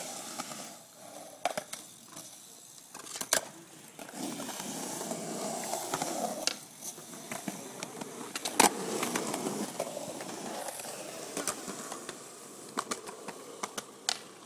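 Skateboard wheels rolling on concrete, a rough rumble that swells and fades, with sharp clacks of boards striking the concrete scattered through; the loudest clack comes about eight and a half seconds in.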